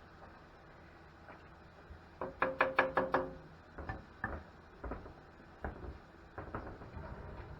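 A quick run of about seven sharp knocks with a slight ringing tone, about two seconds in, followed by scattered single knocks and clatters.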